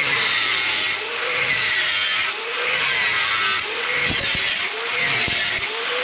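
An old steel saw blade being sawn through by hand, in even back-and-forth strokes of about one a second, each a rasping scrape that rises and falls in pitch.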